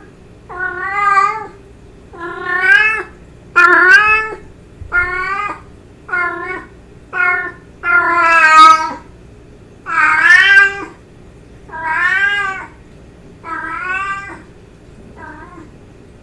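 Domestic cat meowing over and over: about eleven drawn-out calls, each rising and then falling in pitch, with short pauses between them. The last call is short and faint.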